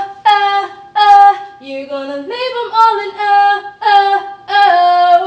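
A female voice singing unaccompanied, a run of about seven held wordless notes with short breaths between them.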